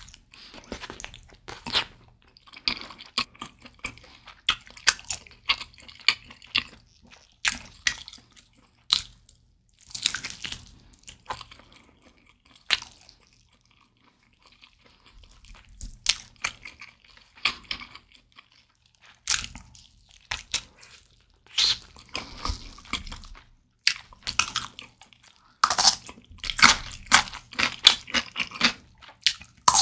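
Close-miked chewing and biting of a roasted jerk-style chicken leg: wet mouth clicks and smacks in irregular bursts, with a quieter stretch about halfway through.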